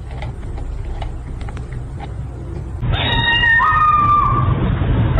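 A cat yowling: one long, drawn-out call that starts about halfway through and steps up in pitch partway along. It comes over a steady rumbling noise with scattered clicks.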